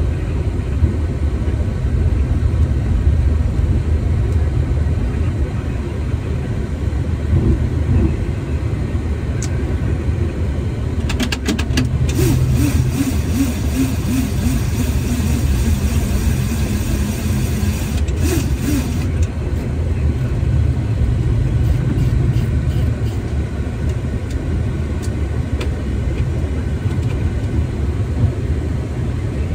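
Boeing 737-800 cockpit noise while taxiing after landing: a steady low rumble of the engines at idle and the wheels rolling on the pavement. A high hiss with rapid ticking comes in for several seconds in the middle.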